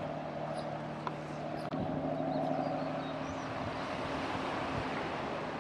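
A steady mechanical hum of an engine or motor running, with a few held tones whose pitch changes about two seconds in.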